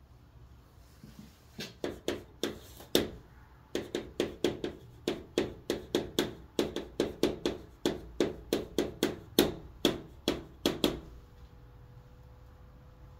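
Chalk writing on a green chalkboard: a quick, uneven run of sharp taps and short scratching strokes as letters are written, falling quiet about eleven seconds in.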